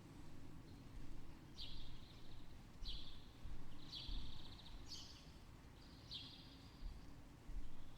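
A bird gives a run of short, buzzy, trilled chirps, about one a second through the middle of the stretch, over a quiet, uneven low background rumble.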